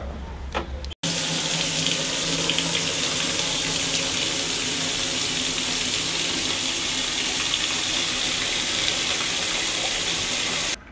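A stream of tap water pouring into a plastic spin-mop bucket, a steady splashing rush. It starts abruptly about a second in and cuts off just before the end, after a few faint clicks at the start.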